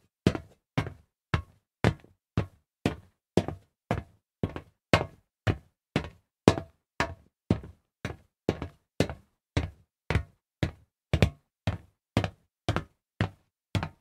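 Footsteps of shoes walking on solid metal at a steady, even pace, about two steps a second. Each step is a sharp knock with a quick second, softer hit just after it.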